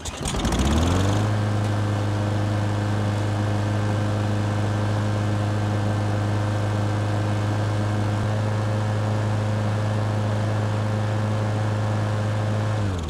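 Briggs & Stratton 6 1/4 hp engine on a Craftsman push mower fires up, revs up within about a second and runs steadily at speed with its air filter off, then is shut off near the end and winds down. It runs fine now that the overfilled crankcase oil, which had soaked the air filter and kept it from running, is back to a normal level.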